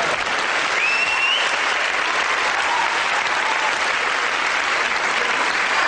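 Large theatre audience applauding steadily, with a short rising whistle from the crowd about a second in.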